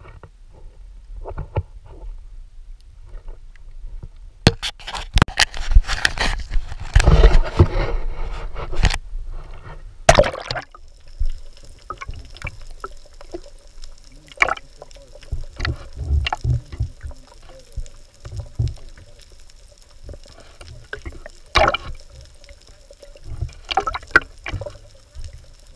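Sea water splashing and churning against a camera as it goes under, loud for several seconds from about four seconds in. It then turns to muffled underwater sound: a faint steady hum with scattered clicks and knocks.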